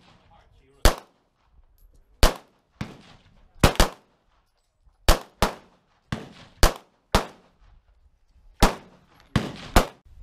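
Semi-automatic pistol shots at a shooting range: about a dozen sharp reports, irregularly spaced, some louder and some fainter, with a close pair here and there.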